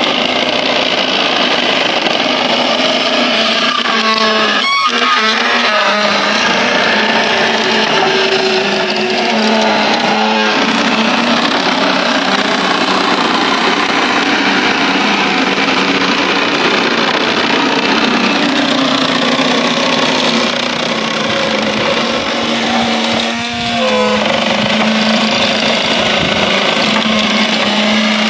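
Traditional sugarcane mill with wooden gear rollers running under power: a loud, steady mechanical din with a constant hum. Brief wavering squeaks come twice, about four seconds in and near the end.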